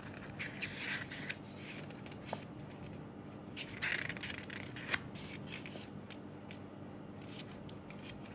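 Paper pages of a small photobook being handled and turned, with rustling in short bursts about half a second in and again about four seconds in, and a couple of light clicks.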